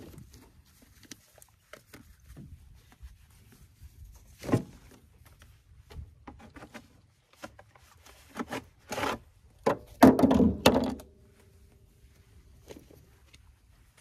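Irregular knocks and thuds, some single and some in quick clusters, with the loudest group about ten seconds in.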